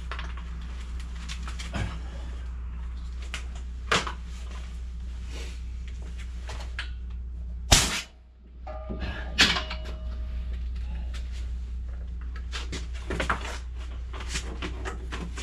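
Handling clatter of a cable reel and an air compressor being unplugged and moved: scattered clicks and knocks, the loudest a sharp knock about eight seconds in, over a steady low hum.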